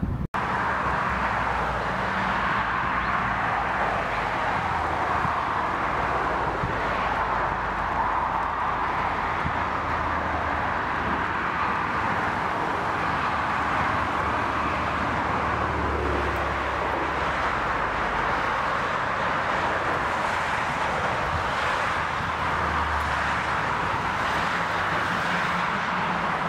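Jet airliner engines running steadily as the plane comes in to land on the runway, with a brief break in the sound right at the start.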